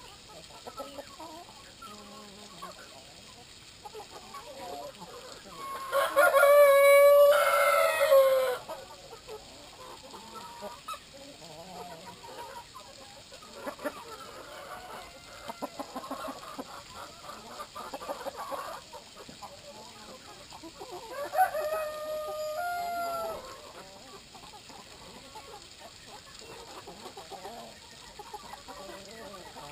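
Rooster crowing twice: a long crow about six seconds in and a shorter one some fifteen seconds later, over soft clucking of hens.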